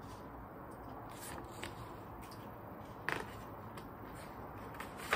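A picture book's paper pages being handled and turned: a few soft, short rustles and taps over quiet room tone, the clearest about three seconds in.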